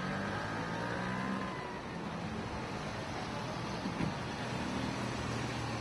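A car passing close by, over the steady low hum of idling vehicle engines, with a short knock about four seconds in.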